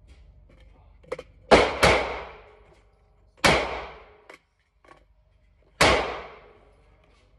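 Four gunshots echoing in an indoor shooting range: two in quick succession about a second and a half in, another near the middle and one more near the end, each with a ringing tail. Between the shots come a few light metallic clicks of a rifle and its magazine being handled on the bench.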